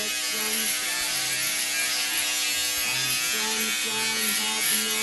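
Electric shaver buzzing steadily as it is run over the face and chin.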